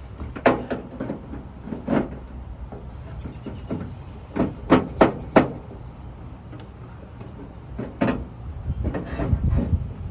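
Sharp metal knocks and clanks from hand work on a pickup truck's tailgate lock and latch, while the bent lock piece is worked back into place. There is a quick run of three knocks about halfway through and a rattling rumble near the end.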